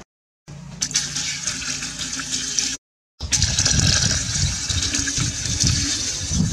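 A stream of water pouring and splashing into a large jar already part-filled with water. The sound cuts out briefly at the start and again about three seconds in, and is louder after the second break.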